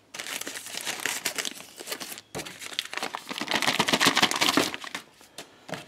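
Plastic wrapping and paper sheets crinkling and rustling as they are handled, a dense crackle that dies down about five seconds in.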